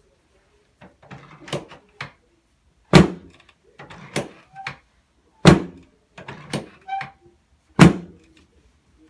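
Chiropractic adjustment table clunking: three loud, sharp thunks about two and a half seconds apart, with softer knocks and clicks between them.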